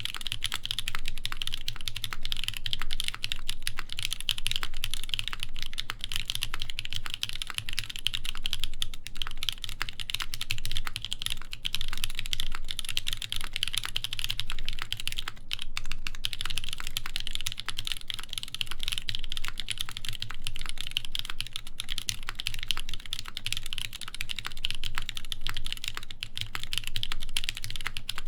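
Continuous fast typing on a mechanical keyboard with lubed NK Cream linear switches, brass plate and GMK keycaps, a dense run of key clacks with a short pause about fifteen seconds in.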